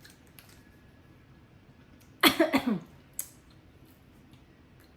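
A person coughs once, a short voiced burst falling in pitch, about two seconds in; a small click follows.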